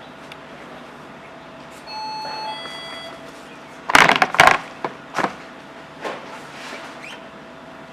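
A short two-tone electronic chime, one pitch and then a higher one, followed about a second later by a quick cluster of loud sharp knocks and a few fainter knocks.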